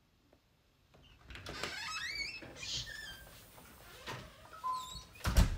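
A house front door being opened, its hinges squeaking in rising, wavering glides, followed by handling knocks and a thump near the end as the door is shut.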